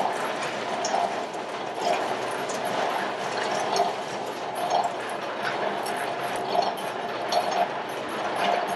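Penagos coffee cherry depulper running as cherries are fed through and pulped: a steady wet mechanical churning with a soft pulse about once a second.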